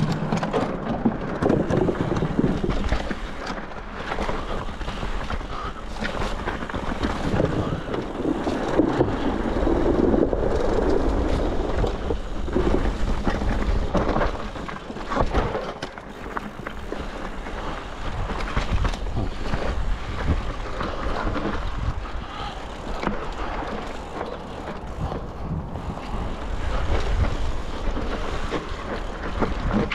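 Mountain bike riding down a dirt singletrack, heard from a camera on the bike or rider: tyres rolling over dirt and roots, with the bike knocking and rattling over bumps, and a constant low rumble of wind on the microphone.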